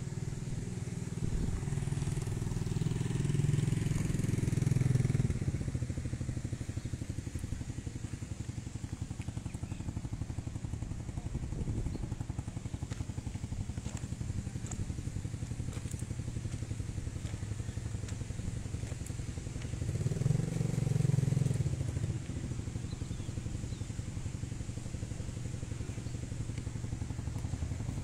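Motorcycle engine idling with a steady rapid patter, and louder engine noise swelling twice, a few seconds in and about twenty seconds in.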